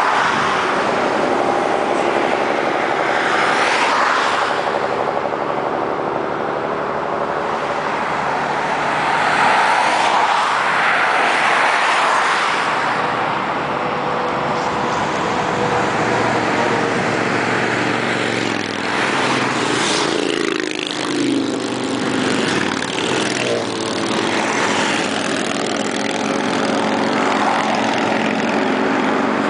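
Highway traffic passing at speed: a group of motorcycles and cars, engines running and tyres hissing, swelling and fading as each one goes by. Around twenty seconds in, engine notes slide down in pitch as they pass.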